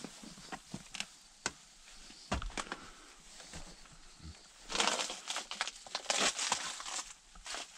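Rustling and crunching steps through straw and debris, with scattered small clicks and knocks, louder in two stretches a little under five seconds in and again around six to seven seconds.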